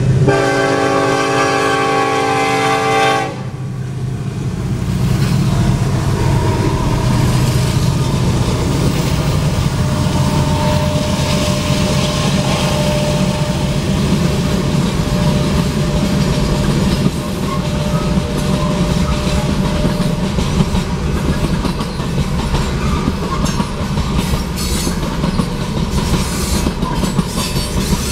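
Union Pacific freight train's lead locomotive, an EMD SD70AH, sounding its horn in a held chord that cuts off about three seconds in. The diesel locomotives then rumble past, followed by tank cars rolling over the rails with a steady clatter of wheels that grows into sharper clicks near the end.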